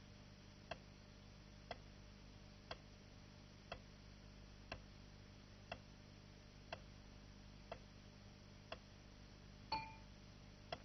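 Sharp clock-like ticks, one each second, marking elapsed time, over a faint low hum. About ten seconds in, a single short ding sounds as the pattern comes round to a circle at the instant of interest.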